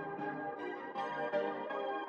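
Background music: an instrumental tune played in a run of bell-like notes.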